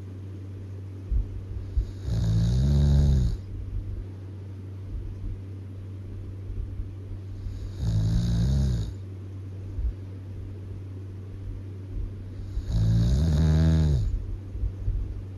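A person snoring loudly: three long snores about five seconds apart, each lasting around a second, over a steady low hum.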